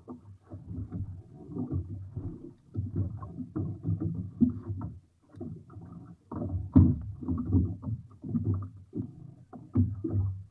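Small fishing boat rocking in choppy water: irregular low thuds and rumbling as waves slap against the hull, with one sharp knock about seven seconds in.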